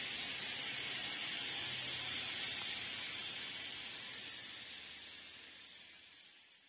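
Steady, even hiss of background noise with no distinct events, fading out over the last two seconds or so.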